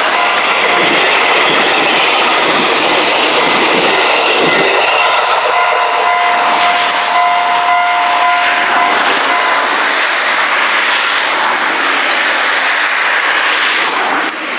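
Tobu Tojo Line train passing close over a level crossing: a loud, steady rush of wheel and rail noise with some clattering. Several steady high tones sound over it and stop about two-thirds of the way through.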